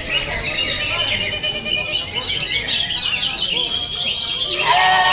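Green leafbird (cucak ijo) and other songbirds singing together in a dense run of rapid chirps and whistles. A lower, held call comes in near the end.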